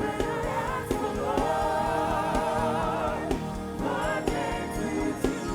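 Live gospel worship music: a choir singing long held notes with vibrato over a band with a steady kick-drum beat.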